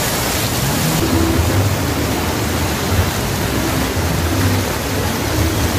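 Heavy rain pouring down in a loud, steady hiss, with a low hum underneath.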